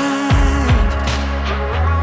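Background music with a steady beat and deep bass notes that slide down in pitch.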